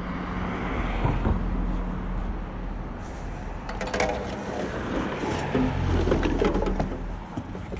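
A vehicle driving, heard from inside the cab: a steady low engine and road rumble as it pulls onto and travels along the road. A few short clicks come about four seconds in.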